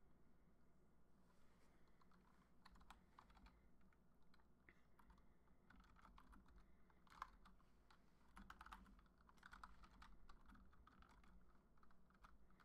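Faint typing on a computer keyboard: irregular key clicks, starting about a second and a half in.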